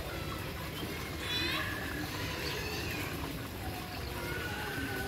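Indistinct voices in the distance, with short high calls, over a steady low background rumble.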